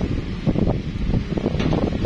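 Wind buffeting the microphone: an uneven low rumble, with a faint tick about one and a half seconds in.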